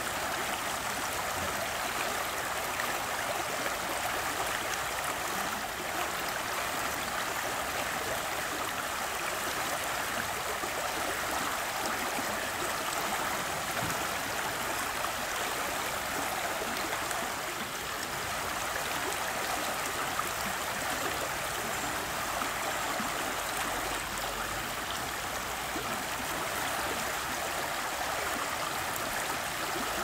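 River current running swiftly over and around rocks: a steady, unbroken rush of water.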